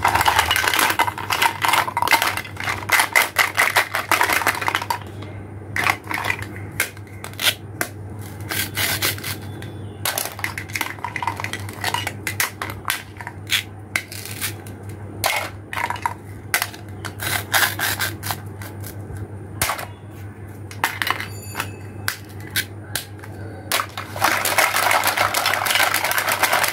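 Hard plastic toy fruit and vegetable pieces clattering and clicking against each other and a plastic basket as they are handled. The clatter is densest at the start and again near the end, with scattered clicks in between.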